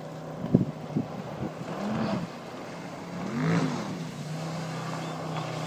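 Motorboat engine running steadily and revved up and back down twice, with two sharp thumps early on.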